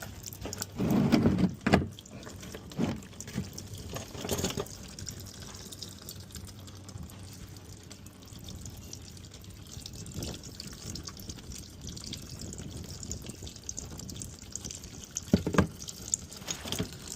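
Engine oil draining from a Can-Am Maverick R's open drain plug hole into a drain pan, a steady pouring trickle. A few short knocks come about a second in and again near the end.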